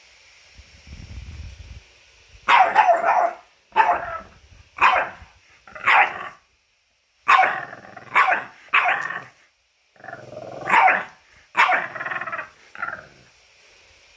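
French bulldog giving about ten short, loud barking whines in quick groups, after a faint low rumble near the start.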